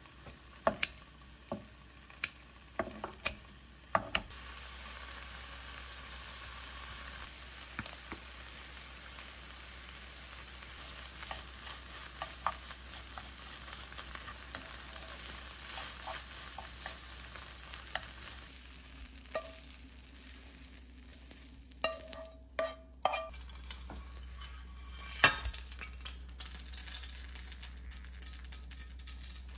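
Food sizzling in a frying pan while a utensil stirs and taps against the pan. A few sharp knocks come first, the sizzle starts about four seconds in, and some short metallic clinks come later on.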